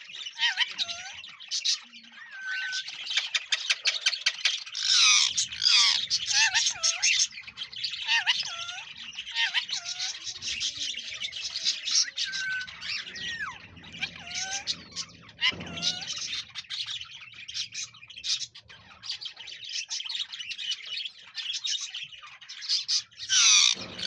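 Parakeets and other birds chirping and squawking in a dense, continuous chatter, with many short rising-and-falling calls.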